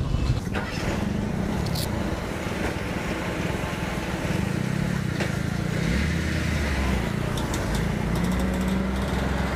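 Motorcycle and scooter engines idling in a steady low drone, with a few light clicks; a deeper engine note joins about six seconds in.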